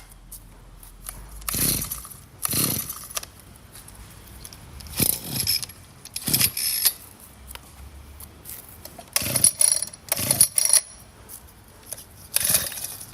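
Recoil pull-starter of a small two-stroke power tool pulled several times, each pull a short whirring rattle, roughly in pairs; the engine does not keep running.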